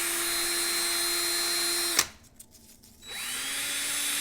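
Cordless drill running steadily, spinning a toy car's axle against 2000-grit sandpaper to polish it. It stops with a click about two seconds in, then starts again a second later and spins back up to a steady whine.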